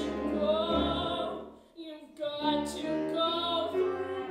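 Woman singing with a strong vibrato over instrumental accompaniment, pausing briefly about halfway through.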